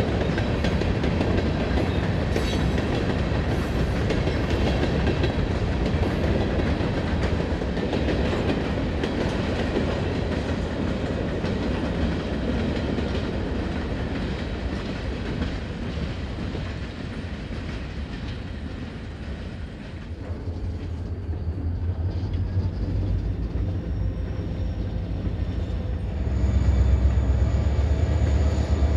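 Freight train of covered hopper cars rolling past, the wheels clicking over the rail joints, the rumble slowly fading as the train moves away. Near the end it gives way abruptly to the louder, steady low drone of diesel locomotive engines running.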